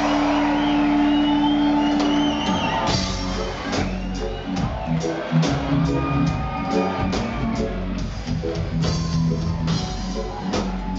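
Live reggae band heard from the audience in a hall: a held chord rings for the first two seconds or so, then drums, bass and guitar kick into a steady, even beat.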